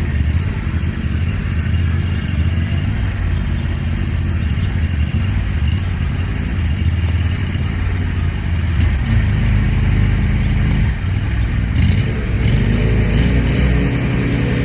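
A small engine running steadily, its pitch shifting a little about nine seconds in, with a few sharp ticks a little later.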